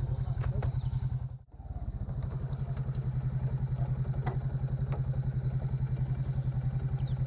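A vehicle engine idling steadily with a fast, even pulse, dropping out briefly about a second and a half in.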